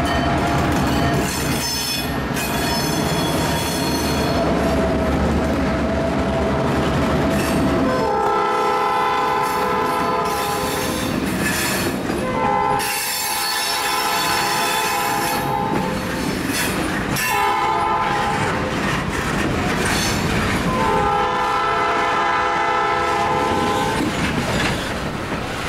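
EMD GP38-2 diesel locomotives rumbling past at the head of a freight train, with high wheel squeal from the rails. About eight seconds in, the locomotive's multi-tone air horn sounds the grade-crossing signal: two long blasts, a short one, then a long one.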